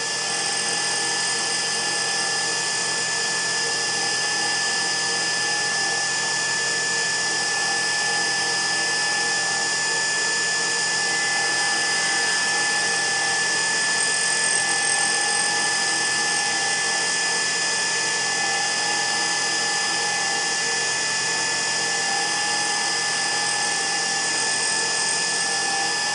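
Tormach PCNC 1100 CNC mill spindle running a face-milling cutter across a 6061 aluminium block, decking the top face flat: a steady machining whine with a strong high tone that holds through the whole pass.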